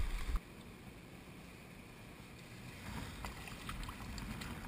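Brief loud handling and water noise that cuts off half a second in, followed by faint wind rumble on the microphone. From about three seconds in come soft rustles and light knocks in the grass as a landing net is handled close to the camera.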